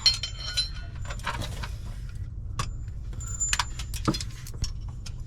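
Hand tools clinking against the steel hardware at a motorhome's upper front shock mount: irregular sharp metallic clicks and clinks, a few ringing briefly, over a steady low rumble.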